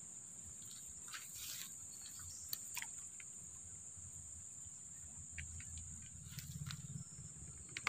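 Insects chirring with a steady, high-pitched, continuous drone, faint, with a few soft scattered clicks and a low rumble that swells briefly a little past halfway.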